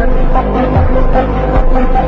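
Dark, dramatic background music with a heavy bass and regular low drum hits.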